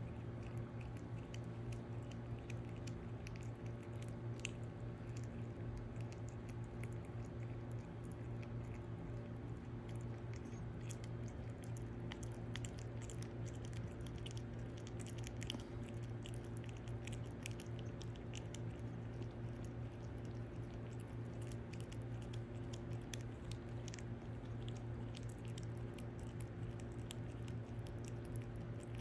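Prairie dog chewing and nibbling a crunchy snack held in its paws, a steady run of small crunching clicks, over a steady low hum.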